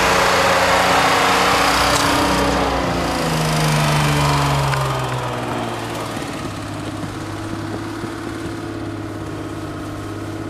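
Vintage Unimog military truck's engine running as it drives, its pitch falling as it slows over the first few seconds. It then idles steadily and more quietly.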